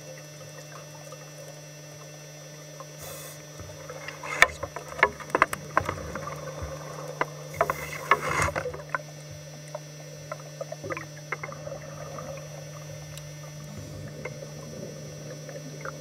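Underwater recording through a camera housing: a steady low hum of the camera throughout, with a cluster of sharp clicks and knocks in the middle, and two short hissing rushes of scuba regulator exhaust bubbles.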